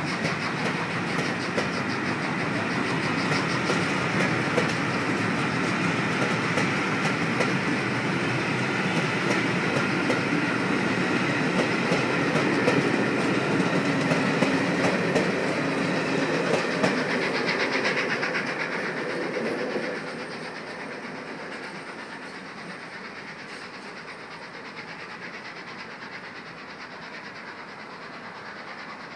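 Passenger coaches of a steam-hauled special train rolling past at speed, wheels clattering over the rail joints in rapid clicks. The sound drops sharply about twenty seconds in and goes on quieter as the train draws away.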